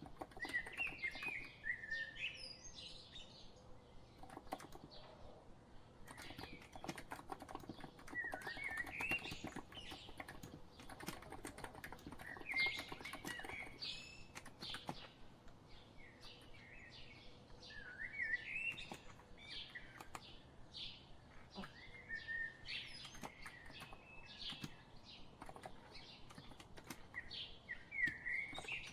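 Steady typing on a COX Empress electro-capacitive keyboard, a dense run of soft key clicks. A songbird sings short warbling phrases over it, repeating about every five or six seconds.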